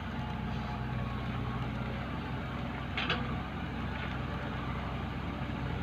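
A vehicle engine running steadily at low revs, a constant low hum, with one short click about three seconds in.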